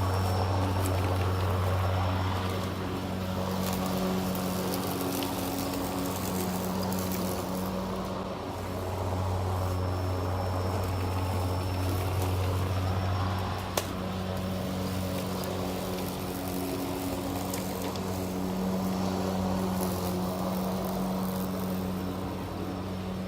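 Greenworks PRO 80V cordless lawn mower's electric motor and blade running through thick grass, a steady hum that swells and eases several times. A single sharp click about 14 seconds in.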